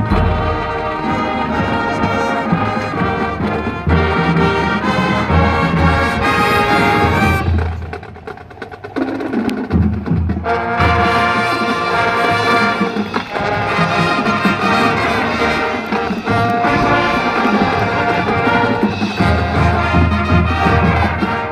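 High school marching band playing loudly, with brass (trumpets and trombones) over drums. The sound thins and drops for a moment about eight seconds in, then the full band comes back in.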